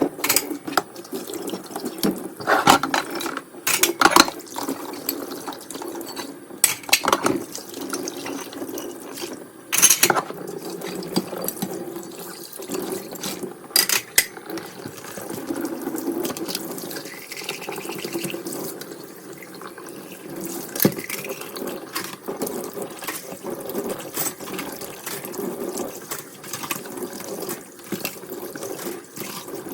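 Kitchen tap running into the sink, with many sharp clinks and knocks of dishes and utensils being handled in it.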